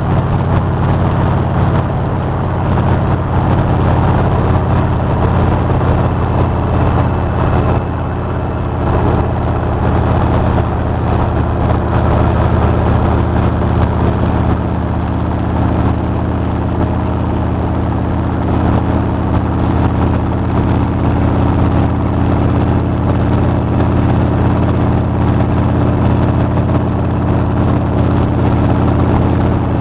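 Motorcycle engine running steadily while riding at road speed, with wind and road noise.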